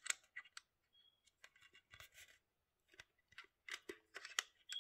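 9 mm cartridges being pressed one by one into a Grand Power Stribog magazine by thumb: a string of small sharp metallic clicks and short scrapes as each round is pushed down against the spring and snaps into place.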